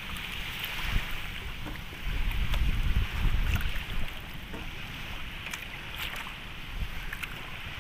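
Wind blowing over the microphone and water moving along the hull of an outrigger bangka travelling with its engine off, the wind rumble strongest about two to four seconds in, with a few light knocks.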